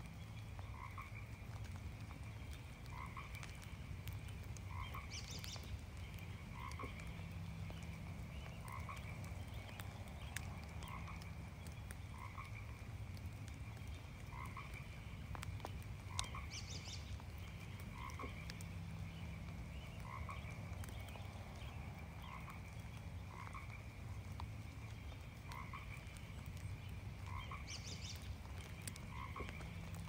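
Frogs croaking in a steady chorus, short calls repeating about once a second, with light rain dripping.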